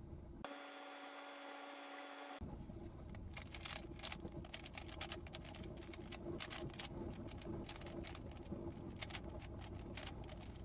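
A steady tone lasting about two seconds near the start, then rapid, irregular clicking and clacking of a 3x3 Rubik's cube being turned by hand.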